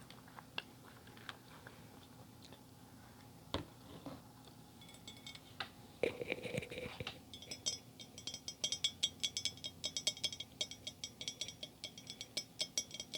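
Eating sounds: faint chewing and biting clicks for the first half, then a louder rustle, then a rapid run of ringing clinks, several a second, as a utensil knocks against tableware.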